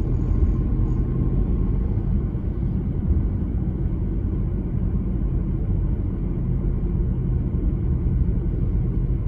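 Steady low rumble of a car's engine and tyres on the road, heard from inside the cabin while driving at an even speed.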